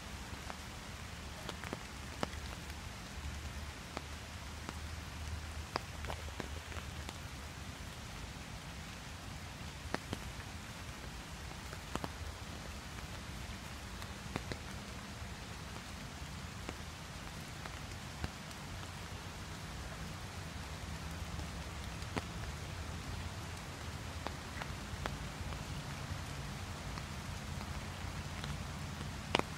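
Steady rain falling on a river and the leaves around it, with scattered sharper drops ticking close by on the umbrella overhead.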